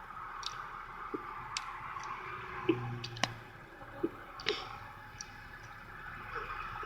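Faint scattered clicks and small wet, squishy noises, with a brief low hum about three seconds in.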